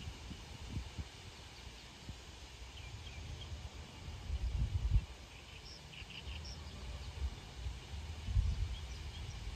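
Wind buffeting the microphone in uneven low gusts, strongest twice in the middle and near the end. Faint short bird chirps sound a few times in the background.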